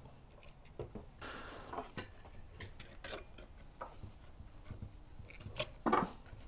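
Scattered light clicks, taps and rubbing as a metal pull-chain lamp socket is handled and worked at on a wooden workbench. The loudest knocks come near the end.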